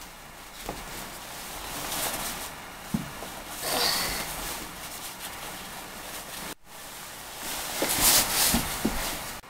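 Rustling and scuffing of winter clothing and snow boots as they are unstrapped and pulled on, swelling a few times, with a few soft knocks.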